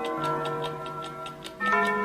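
Countdown timer's alarm ringing at time up: a chime of several ringing tones that shift from note to note, struck afresh about one and a half seconds in, over a steady clock ticking.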